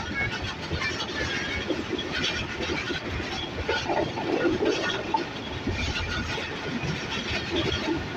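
Passenger train running along the track, heard from on board: steady noise of wheels on rails and the moving coach, with no clear rhythm of rail joints.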